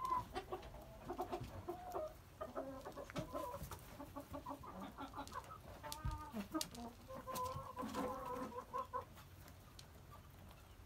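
Hens clucking, a run of short calls that stops about nine seconds in.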